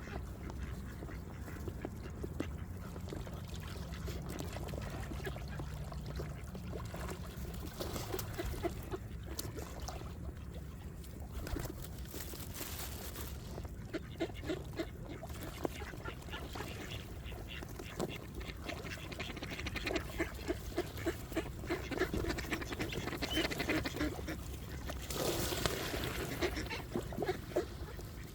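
Ducks quacking in quick runs of calls, more often and louder in the second half.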